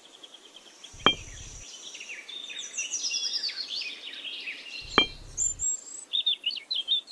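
Miniature bricks set down on sand: two sharp clicks with a short dull thud, about a second in and about five seconds in. Birds chirp throughout, getting busier from about two seconds in.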